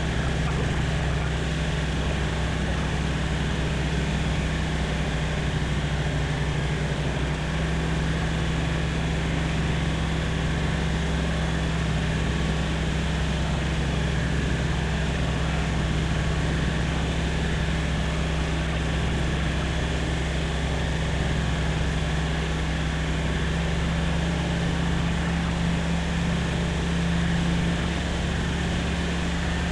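Light aircraft's piston engine and propeller droning steadily in cruise, the pitch of the drone shifting slightly a couple of times.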